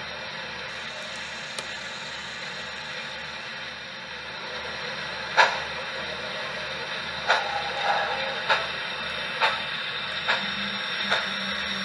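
HO scale model steam locomotive running slowly: a steady hiss with soft low pulses about twice a second. From about five seconds in, sharp clicks come roughly once a second.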